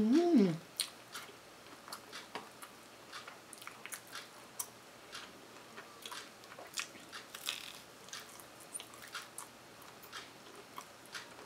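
Close-miked eating of a toasted waffle ice cream sandwich. A short hummed "mmm" rises and stops within the first second. After it come soft chewing, wet mouth clicks and small bites into the waffle.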